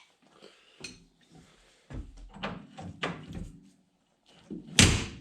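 Metal tools and truck parts clanking and knocking as a stuck part is worked with a breaker bar: a string of separate knocks, the loudest a heavy thunk near the end.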